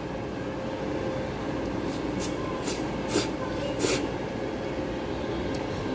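Noodles being slurped off chopsticks in four short sucking slurps in the middle of the stretch, over a steady low room hum.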